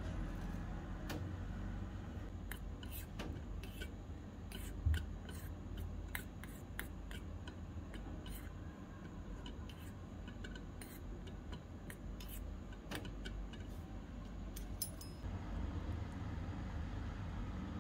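Metal spoon clicking and scraping against a small stainless-steel kadai while carrots are stirred in water, over a low steady hum, with one dull knock about five seconds in.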